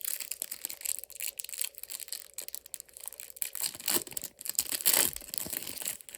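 Foil trading-card pack wrapper crinkling and being torn open, with cards handled, a steady run of small crackles and two louder tearing rustles about four and five seconds in.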